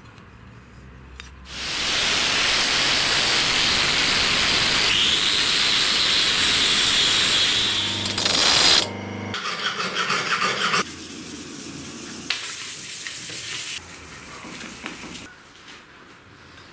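Steel knife blade pressed against a spinning wheel on a bench grinder: a loud, steady grinding hiss for about six seconds, then shorter, quieter passes that die away about fifteen seconds in.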